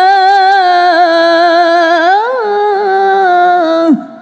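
A woman reciting the Quran in melodic tilawah style, holding one long ornamented note on the last syllable of 'Allah' that wavers, swells up in pitch about halfway, then drops and breaks off near the end.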